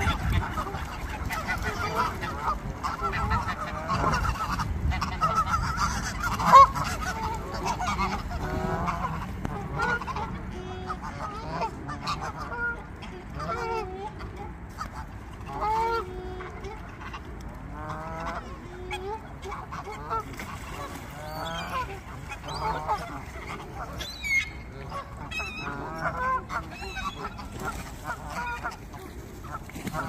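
A flock of Canada geese honking, many short calls overlapping throughout. A single brief loud knock sounds about six seconds in.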